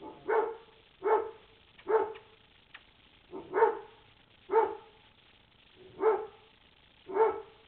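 A dog barking repeatedly, seven barks spaced roughly a second apart.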